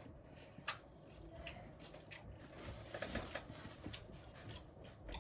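Faint crisp crackles of someone biting into and chewing crunchy tortilla nacho chips, a few sharp crunches spread through the mouthful.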